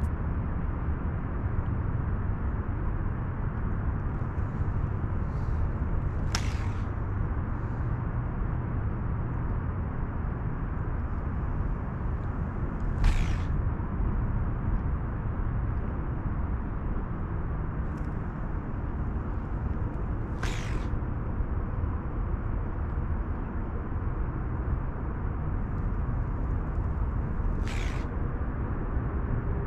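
Steady low outdoor rumble at the water's edge, with no distinct source standing out. Four brief, faint, high swishes break through it about seven seconds apart.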